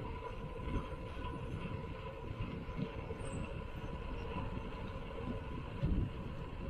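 Osprey Hooger Booger 26-inch mountain bike rolling along a concrete road: a steady rumble of tyres and wind on the rider-mounted microphone, with a faint steady hum through it. A single thump comes about six seconds in.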